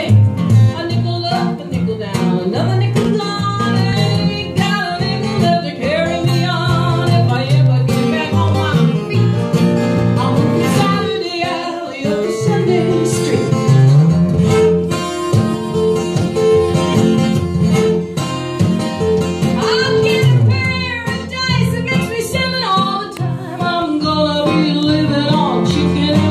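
Live acoustic folk-country music: two acoustic guitars strumming and picking together, with a woman singing.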